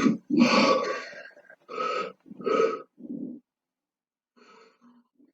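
A person's voice making a run of short, guttural grunts, four distinct ones about half a second apart, then a few much fainter ones near the end.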